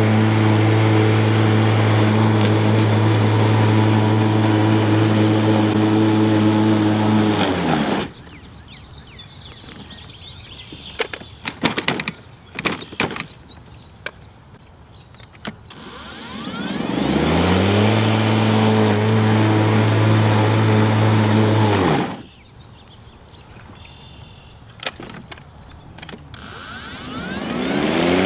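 DeWalt FlexVolt 60V cordless push mower's electric motor and blade running with a steady hum, then cutting off abruptly about eight seconds in. After a few clicks it spins back up with a rising whine, runs steadily again, and cuts off suddenly once more. Near the end it starts spinning up again.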